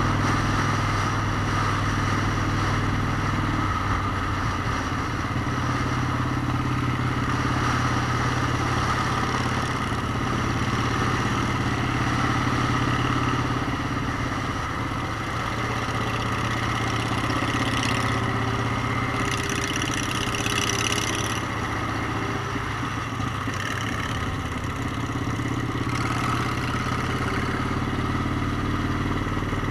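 Motorcycle engine running under way, its note shifting a few times, with steady wind noise over the microphone.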